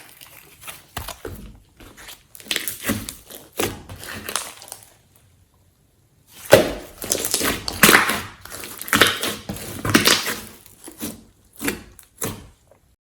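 Homemade glossy slime being squished, pressed and stretched by hand, in irregular sticky clicks and squelches, busier in the second half and stopping shortly before the end.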